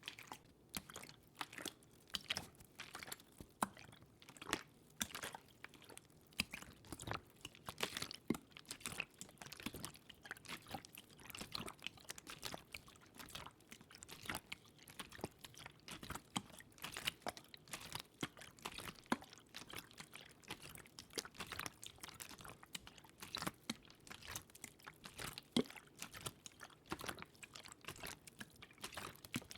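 Close-miked ASMR water sounds: a continuous run of small, irregular wet clicks and crackles.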